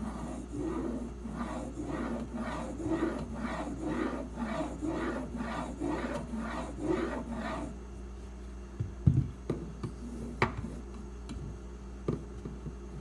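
Steel knife edge, clamped in a sharpening guide, being stroked back and forth on a sharpening stone: an even rhythmic scraping at about two strokes a second. The strokes stop about eight seconds in, followed by a low thump and a couple of sharp clicks.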